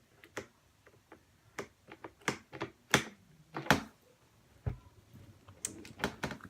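Irregular sharp clicks and light knocks, about ten of them, with the loudest around the middle: small objects being handled and rummaged through.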